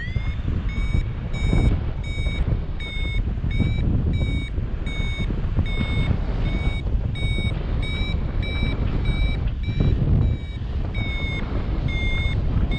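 Paragliding variometer beeping its climb tone: short, evenly spaced high beeps about one and a half a second, the sign that the glider is rising in a thermal. Wind rushes over the microphone underneath.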